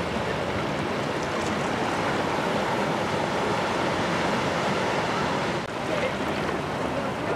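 Steady rushing noise of wind and water, with a brief dip about five and a half seconds in.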